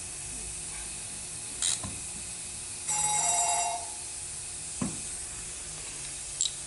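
Ratchet wrench tightening a bolt: a click, a short buzzing run of ratchet clicks about three seconds in, then another click.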